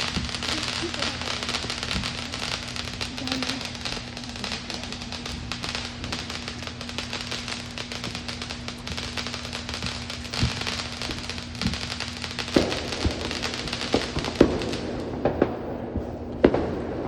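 Fireworks crackling: a dense, rapid crackle of many small pops that thins out after about twelve seconds into a run of separate, louder bangs.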